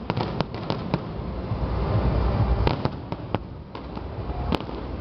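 Fireworks display: a string of sharp bangs at irregular intervals over a low rumble, the loudest about four and a half seconds in.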